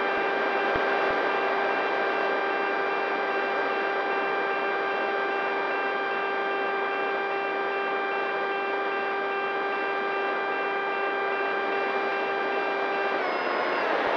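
Electric motor and pusher propeller of a Multiplex FunJet Ultra 2 RC plane, heard from its onboard camera: a steady whine at one pitch over a hiss of rushing air. About a second before the end, the whine steps slightly down in pitch.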